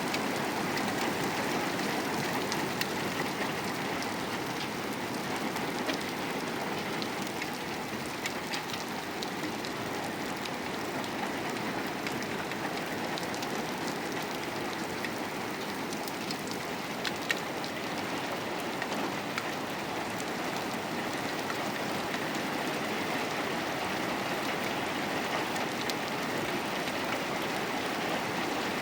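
Steady rain falling, a dense even hiss with many separate drops tapping on a surface.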